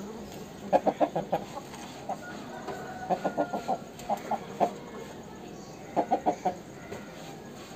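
Aseel chicken clucking in quick runs of three to five short, clipped clucks, four or five runs a second or two apart.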